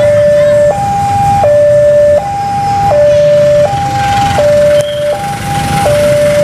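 Railway level-crossing warning alarm sounding its two-tone electronic signal, switching between a higher and a lower pitch about every three-quarters of a second, which warns that a train is coming and the barrier is down. Motorcycle traffic rumbles underneath.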